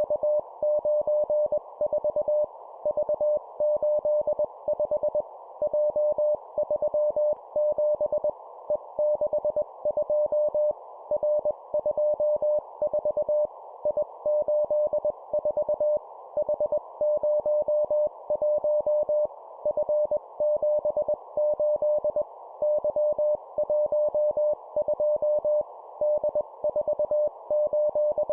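Morse code (CW) practice tone keyed at 20 words per minute: a single steady beep sends three-character groups, each a letter and two digits, with short pauses between the groups, over a constant background hiss.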